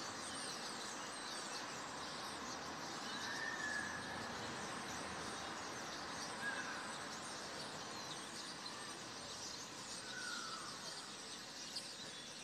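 Many small birds chirping high over a steady outdoor background hiss, with a few short, sliding lower calls.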